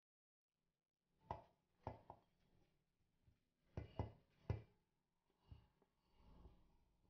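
Faint scattered taps and knocks of a plate and fingers against a stainless-steel mixer-grinder jar as damp, crumbly wheat-flour dough is scraped into it. The loudest knocks come in a group around the middle.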